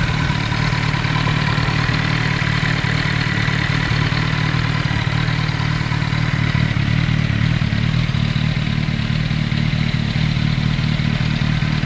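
Turbocharged Kawasaki ZXR750 inline-four engine idling steadily, with no revving, while its throttle bodies are being synchronised.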